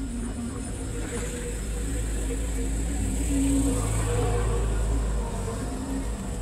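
Forklift engine running as it drives past close by carrying a log, loudest about halfway through. A thin, steady high-pitched whine sits over it.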